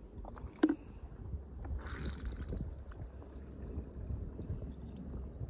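Low, uneven wind rumble on the microphone, with a sharp click about two-thirds of a second in.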